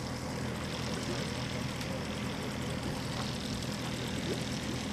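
Steady engine drone: a constant low hum over an even hiss, with no change in pitch or loudness.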